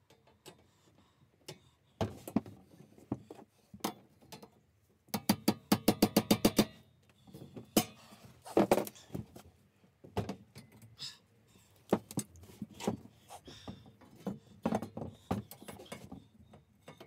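Knocks and metallic clatter of a workbench frame being assembled, pieces pushed and tapped into slotted uprights. About five seconds in comes a quick run of about a dozen sharp knocks, and a single loud knock follows soon after.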